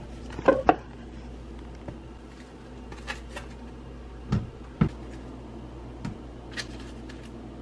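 Scattered knocks, clicks and packaging crinkles from raw sausage links being taken from their plastic-wrapped tray and laid into a nonstick frying pan on a glass-top stove, with two low thumps about four and a half seconds in.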